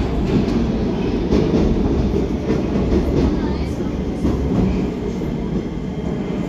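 Metro train running at speed, heard from inside the car: a steady low rumble of wheels on track, with scattered clicks over the rails.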